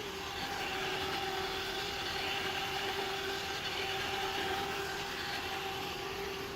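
Roomba's wheel drive motors spinning up to a higher speed: a steady electric motor whine with a two-tone hum, starting suddenly and holding even.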